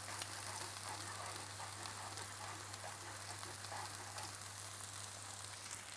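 Oil, mustard and vinegar herb sauce sizzling with fine crackles in a hot saucepan as it is stirred with a spoon, over a steady low hum.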